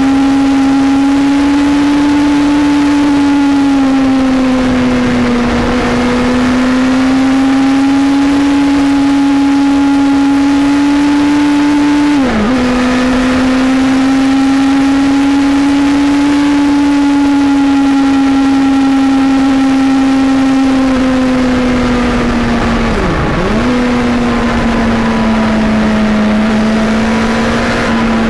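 Suzuki Hayabusa Gen 2's 1340 cc inline-four engine running at steady cruising revs under way, heard from onboard with wind rushing past. The note holds nearly level, and twice, about halfway through and again near the end, it dips briefly and comes straight back up.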